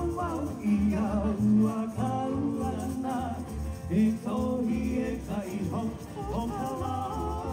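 Live Hawaiian music for a hula dance: a voice singing a melody over a small band, with a steady bass beat.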